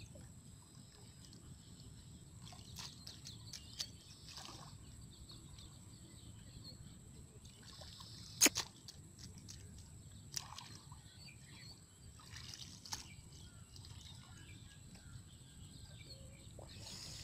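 Hands digging and scooping in wet mud and shallow water, with faint sloshes and squelches and a few sharp clicks, the loudest about halfway through.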